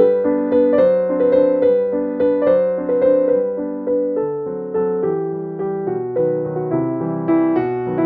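Background piano music: a gentle melody of notes struck one after another at an even pace, each fading as the next begins.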